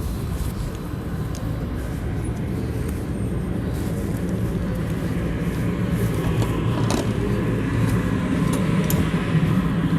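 Steady low rumble of a nearby vehicle, growing louder over the second half, with a sharp click about seven seconds in.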